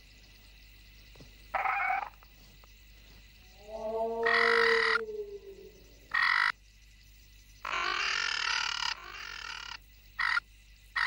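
Coelophysis dinosaur calls, as voiced for the documentary: a string of about seven short, rough calls. The longest comes about four seconds in and drops in pitch at its end.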